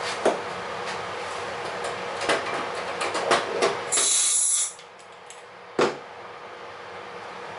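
Shop air compressor running steadily, then its motor cuts out about four seconds in with a short sharp hiss of released air, leaving the room much quieter. Light clicks and a knock from a pneumatic rivet gun and small parts being handled on the aluminum skin.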